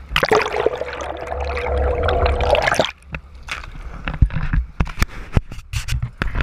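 Sea water rushing and gurgling over a GoPro's waterproof housing as it is dipped through the waves, with a steady hum under it. This cuts off abruptly about three seconds in, when the camera comes out of the water, and scattered sharp knocks and bumps follow.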